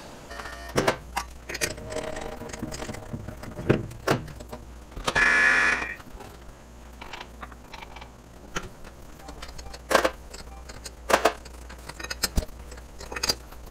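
Scattered metallic clanks and rattles of lifting chain and a chuck key as a heavy steel bar is clamped into a lathe's three-jaw chuck, over a steady low hum. About five seconds in there is a brief louder noise with a high whine.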